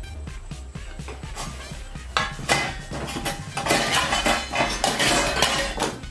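A metal spoon clinking and scraping against a small glass bowl as powder is stirred. There are a few scattered clicks at first, then quick, busy clinks from about two seconds in, loudest in the second half.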